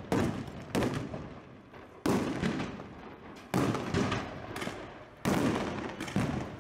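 Fireworks going off: about six sharp bangs at irregular intervals of roughly one to two seconds, each trailing off in a long echo.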